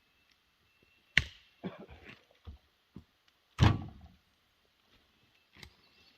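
Firewood knocking and thudding. A sharp, ringing knock comes about a second in, followed by a clatter of smaller knocks, then a heavy thud near the middle and one lighter knock near the end.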